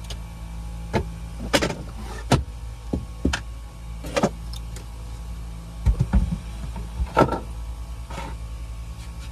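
Scattered wooden knocks and clunks as the bed panels and fittings inside a camper van are moved and set in place, about eight in all, the loudest near the end, over a steady low hum.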